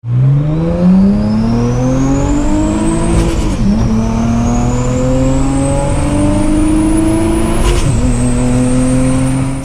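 Turbocharged Infiniti G35's V6 accelerating hard through the gears, the revs climbing and dropping at upshifts about 3.5 and 8 seconds in. A high turbo whine rises with the revs and falls at each shift.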